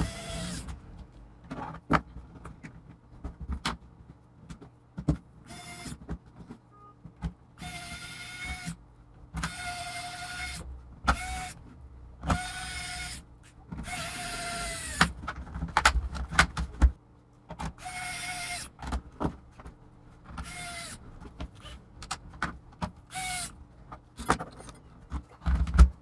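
Electric screwdriver driving laptop hinge screws: about eight short whirring runs of its motor, each half a second to a second long, with clicks and small knocks of handling between them.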